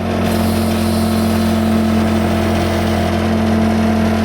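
Case 580C backhoe's four-cylinder diesel engine running steadily at raised throttle, about 1500 rpm.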